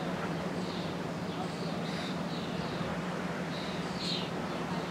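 Small birds chirping in short, high notes several times, over a steady low hum.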